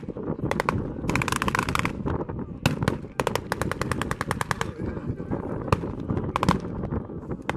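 Blank gunfire in a battle reenactment: rapid bursts of machine-gun fire, the longest about a second and a half, with single rifle shots between the bursts.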